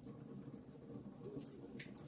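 Fireplace crackling: scattered small sharp ticks and pops over a low steady rumble, with a couple of louder pops near the end.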